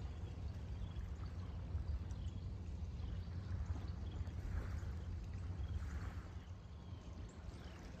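Small waves lapping on a pebble-and-shell shoreline, with soft washes of water about four and a half and six seconds in, over a steady low rumble. A few faint, short, falling bird chirps sound high above it, more of them near the end.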